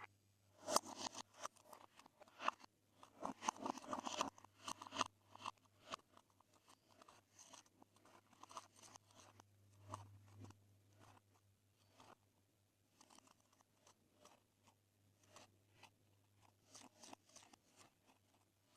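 Glossy slime being squished and pressed by hand, giving irregular soft pops and clicks that are busiest in the first five seconds and then thin out.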